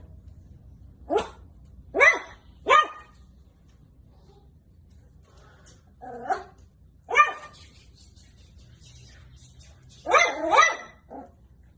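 Beagle puppy barking: about seven short, high yelping barks, three in quick succession, then two, then a final pair close together near the end.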